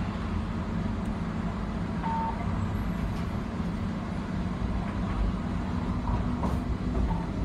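Bombardier tram running along the track, heard from inside the driver's cab: a steady low rumble with an even humming tone.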